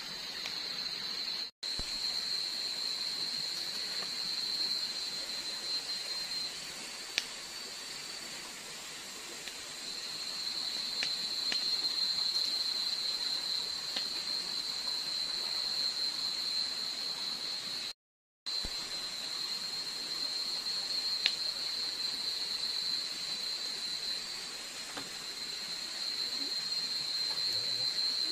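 Steady high-pitched chorus of night insects in a tropical forest, with a few faint snaps from a small campfire. The sound cuts out completely twice for a moment.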